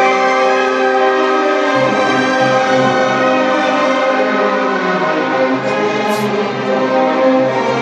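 Symphony orchestra playing live in a large church, with sustained chords from strings and brass over a repeated pulsing low note.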